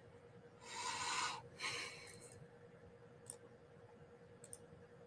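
Faint computer mouse clicks while menu items are picked, over a faint steady hum. A short, soft rush of noise comes about a second in.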